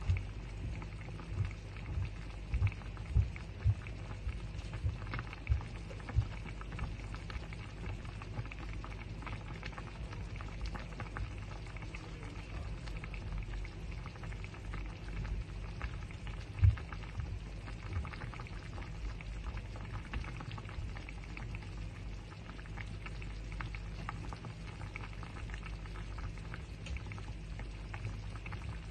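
Meat broth boiling in a stainless steel wok: a steady bubbling hiss, with scattered low pops, most of them in the first few seconds and one louder pop a little past the middle.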